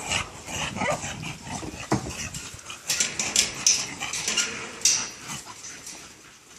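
Exotic bully dog making a string of short, irregular noises, with a few faint whimpering tones among them.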